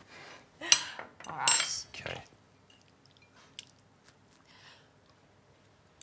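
Metal forks scraping and clinking on ceramic plates as macaroni is scooped up. Two louder short sounds come in the first two seconds, followed by a few light clinks.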